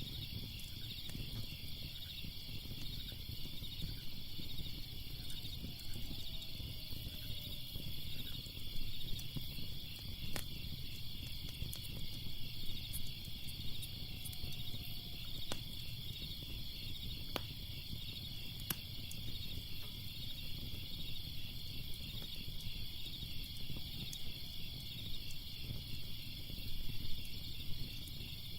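Steady chorus of crickets chirping, over a low fire rumble with a few sharp crackles and pops from a wood fire.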